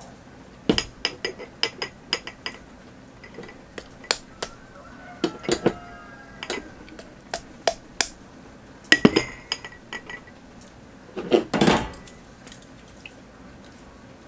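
Glass canning jars knocking on a tabletop and clinking together as green beans are packed into them: a run of sharp separate clinks, with two louder clatters about nine and eleven and a half seconds in.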